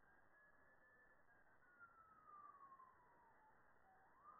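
Faint emergency vehicle siren on a slow wail: the pitch holds high, falls slowly for about three seconds, then starts rising again near the end.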